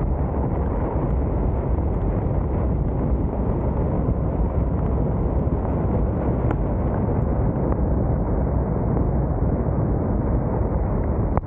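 Wind buffeting the microphone of a camera mounted on the roof of a moving vehicle: a steady, loud, deep rush of air.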